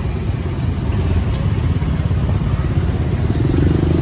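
Road traffic close by: a steady low rumble of vehicle engines, with one engine's note getting louder near the end.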